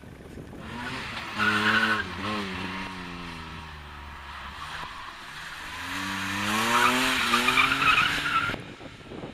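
BMW E30 3 Series rally car's engine revving hard with tyres squealing, loudest about a second and a half in; it eases off, then revs up again with a longer tyre squeal before the sound cuts off near the end.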